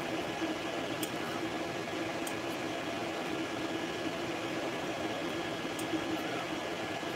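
3D printer running mid-print: a steady whir of its cooling fans with the hum of the stepper motors, and a few faint ticks.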